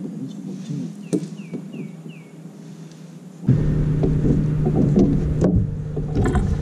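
Steady electric motor hum on a bass boat that jumps much louder with a low rumble about halfway through. A few sharp knocks and four short, high, falling chirps come in the first half.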